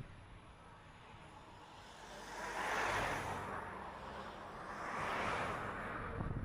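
Road and tyre noise of a moving car, with two rising-and-falling swells of noise about three and five seconds in, like vehicles passing close by.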